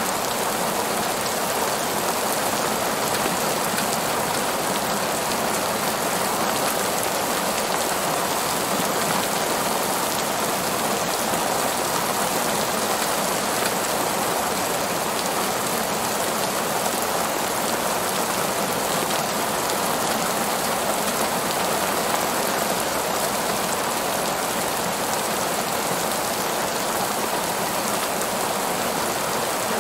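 Heavy rain falling steadily on a paved parking lot.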